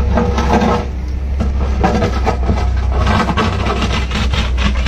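Hitachi wheeled excavator's diesel engine running with a steady low drone, while its steel toothed bucket scrapes and digs through dry soil and broken rock, the stones clattering over and over.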